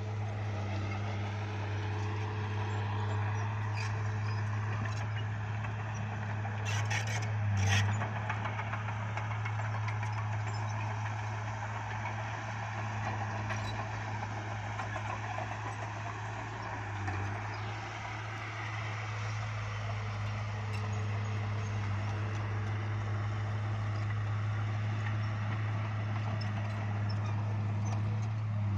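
Bulldozer's diesel engine running at a steady, unchanging pitch, with a few sharp clanks about seven seconds in.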